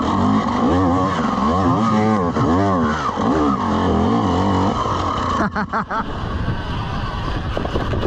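Dirt bike engine revving up and down in quick waves for about five seconds, then giving way to rougher, uneven noise with a few brief dropouts.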